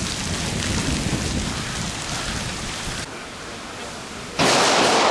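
A steady rushing noise, then near the end a sudden, loud burst of handgun fire on an outdoor shooting range, lasting under a second.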